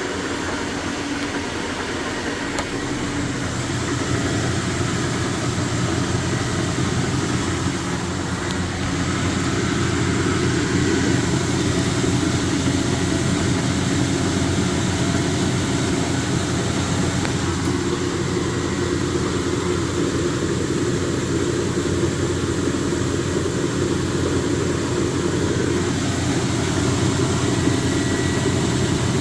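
Speed Queen TR-series top-load washer running with a rapid, continuous knocking and rattling, a little louder after a few seconds. The noise comes from play in the drive pulley, whose nut has worked loose on the shaft.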